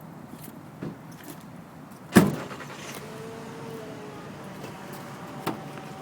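A vehicle door slams shut about two seconds in, with a couple of lighter knocks before and after, over a steady low hum.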